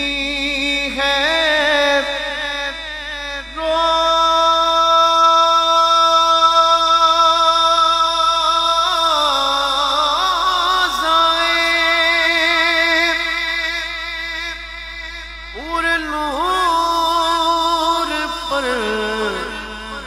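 Naat recitation: a single voice singing long, drawn-out wordless notes with a slight waver, sliding between pitches, with no audible drum or beat.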